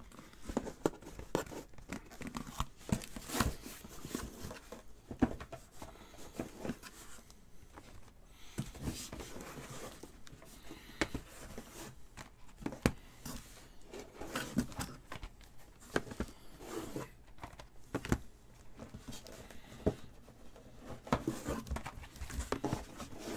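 A cardboard shipping case is opened by hand and the shrink-wrapped card boxes inside are lifted out and stacked: rustling, crinkling cardboard and plastic with many scattered knocks as the boxes are set down.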